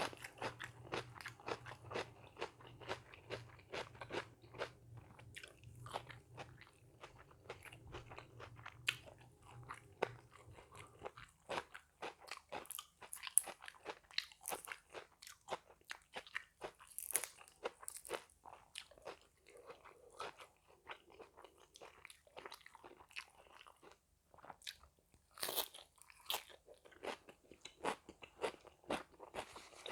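A person chewing crisp food close to the microphone, a dense run of irregular crunches. A low steady hum underneath stops about eleven seconds in.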